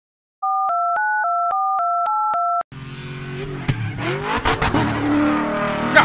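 Touch-tone telephone dialing: about eight quick beeps, each a pair of steady tones, changing pitch from one to the next. About two and a half seconds in they stop and a vehicle engine sound starts, with a whine that rises in pitch.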